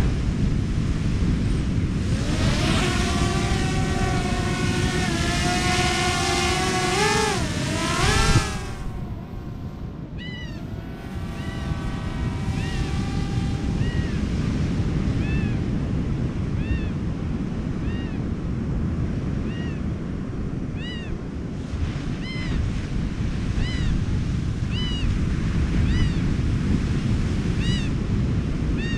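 Steady rush of surf and wind. For several seconds a pitched motor-like whine sounds, bending up and down before it stops about eight seconds in. After that, short high chirps repeat roughly once a second.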